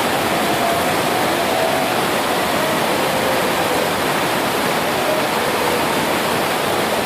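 Steady, loud rush of fast-flowing water, like a river running over rapids.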